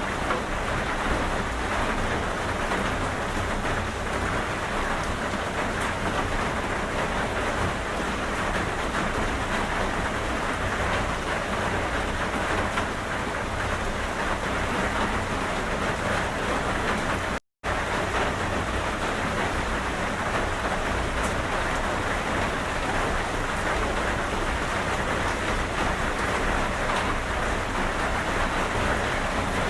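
Steady heavy rain, with a constant low rumble underneath. The sound cuts out completely for a split second about two-thirds of the way through.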